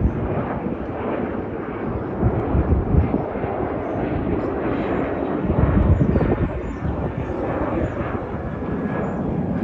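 Jet airliner engines, a steady dense rush of jet noise with irregular low rumbles underneath.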